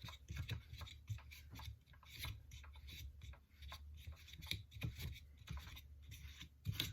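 Hands unscrewing the fan of a STIHL BG50 blower off its flywheel, turning it against its reverse thread: faint, irregular small clicks, scrapes and rubbing of parts being handled.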